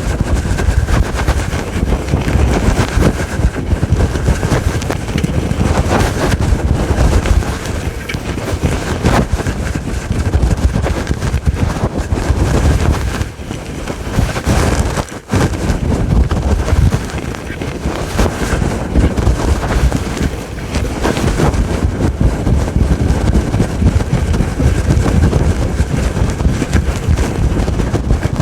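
Fast, loud scratching and rubbing directly on a fluffy furry microphone windscreen, a continuous dense rustle with the microphone picking up every stroke. The scratching eases off about halfway through and stops for an instant before starting again.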